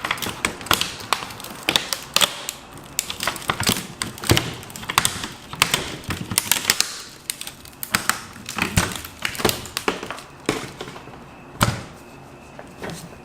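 Irregular clicks, taps and knocks from a laptop's parts being handled and worked on during disassembly. The clicks thin out over the last couple of seconds.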